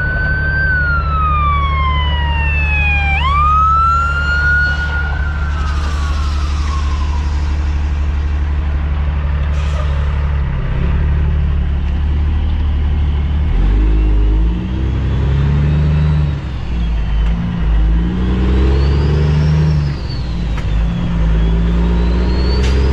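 Cummins ISX diesel engine of a Kenworth W900L tractor, heard from inside the cab as the truck pulls away loaded and is shifted up through the gears from about 13 seconds in, the engine pitch rising and dropping with each shift. In the first few seconds a high whistle falls, jumps back up and falls again.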